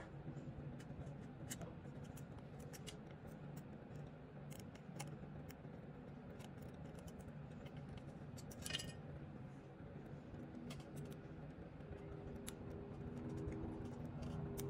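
Razor blade scraping old gasket material off the crankcase's cylinder-base surface of a 110cc engine: faint, irregular scratches and small clicks, a little louder about nine seconds in, over a steady low hum.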